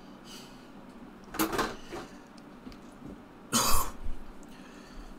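A man coughing twice, a short cough and then a louder one about two seconds later.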